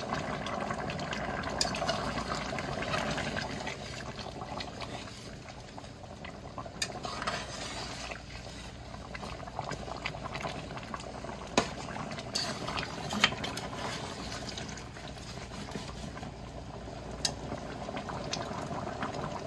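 A pot of turkey-neck stew in thick gravy bubbling at a simmer on the stove, being cooked down to thicken the gravy. A slotted metal spatula stirring it clicks against the pot a few times.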